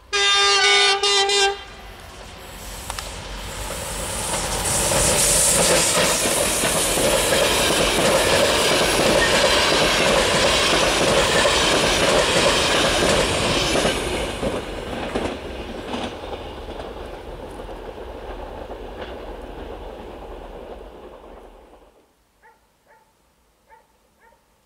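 Siemens HellasSprinter (OSE class 120) electric locomotive sounding one steady horn blast of about a second and a half, then the locomotive-hauled passenger train passing, its wheels running over the rails, swelling to loud and fading away over about twenty seconds.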